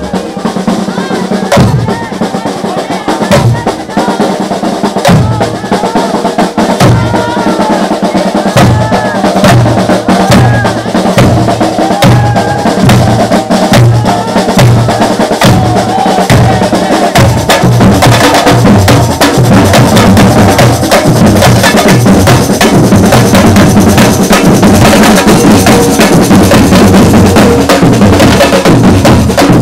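A street percussion band of marching drummers playing a steady carnival beat on bass drums and snares. The rhythm gets busier and louder about halfway through, with parade voices over it.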